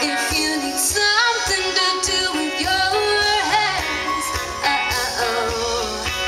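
Live country-pop band playing loud through the PA, with electric guitar and drums and a woman singing over them. The melody has several sliding, bending notes.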